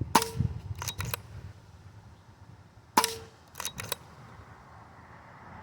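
Two shots from a JTS Airacuda Standard .22 pre-charged pneumatic air rifle, about three seconds apart. Each is a sharp crack followed, under a second later, by two quick clicks.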